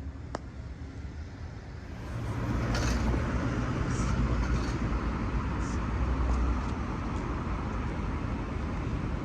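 Road traffic noise: a low rumble that swells about two seconds in as a vehicle passes, then settles to a steady traffic hum.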